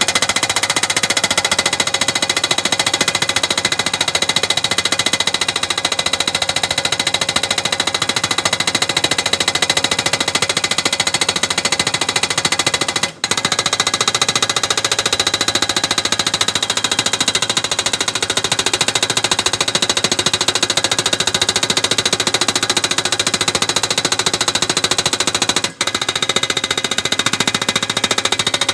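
Rapid, continuous mechanical hammering like a jackhammer or breaker, steady in level, broken off for an instant twice, about halfway through and near the end.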